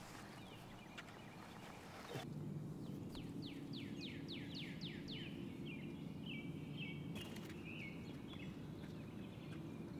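A songbird singing: a quick run of about eight falling notes, then a choppy, warbling phrase, over a steady low background hum.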